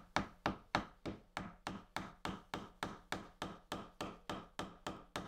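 A hammer tapping a wooden chisel handle onto the steel tang in a steady run of quick taps, about four a second, driving the handle on tight.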